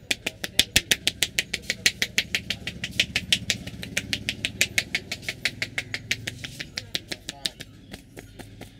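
Rapid, even hand slaps of a barber's head massage, about six or seven strikes a second, growing fainter and sparser near the end.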